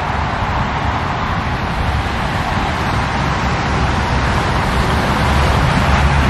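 Steady road-traffic noise, a continuous hiss of passing vehicles' tyres, with a low rumble building near the end.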